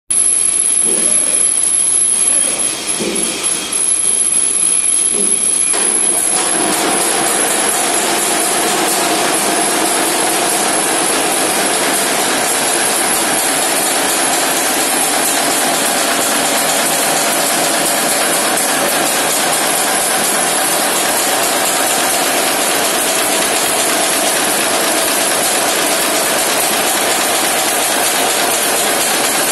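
Wire nail making machine running at speed: a fast, steady mechanical clatter as it draws wire off the coil and cuts and heads nails. The clatter grows fuller about six seconds in.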